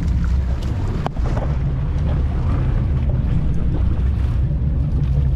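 A boat's engine running steadily, with wind on the microphone and water rushing past the hull; a sharp knock about a second in.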